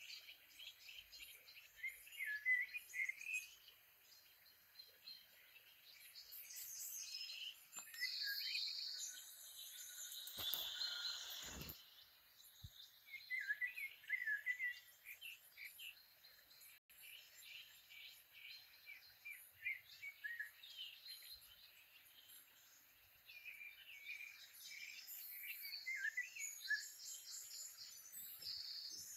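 Nature-sound background of many birds chirping in short repeated calls, with high-pitched insect chirring. A brief burst of rustling noise comes about ten to twelve seconds in.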